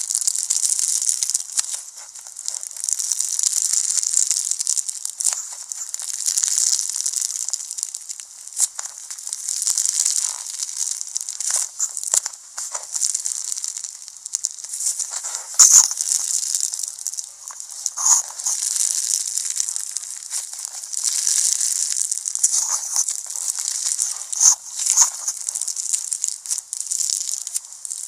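Hands playing with slime: a high crackling, squishing sound full of small pops and clicks, swelling and fading in waves as it is squeezed and stretched.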